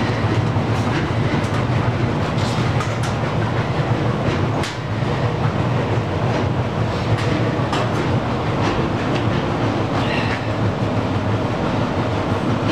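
Groen Vortex 100 electric countertop steamer running: a steady low hum and rush with no let-up. A few light metallic clicks and clanks come through it as its loose stainless side panel is handled.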